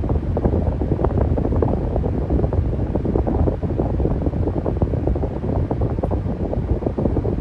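Electric fan running steadily, a low rushing of air with a fast, uneven flutter, like the fan's airflow buffeting the microphone.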